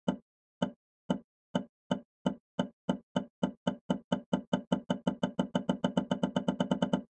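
A single low knock, repeated over and over as electroacoustic music, speeding up steadily from about two knocks a second to about eight a second, then cutting off suddenly.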